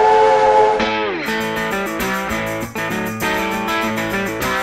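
Steam locomotive whistle sounding a steady chord over steam hiss, sliding down in pitch and dying away about a second in. Guitar-led blues music then takes over with a steady beat.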